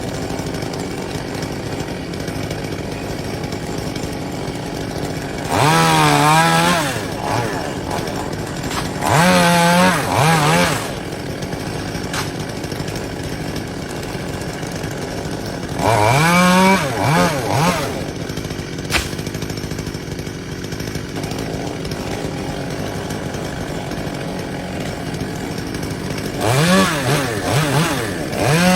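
Two-stroke chainsaw running steadily, revved up hard four times in short bursts of a second or two, its pitch wavering up and down during each burst.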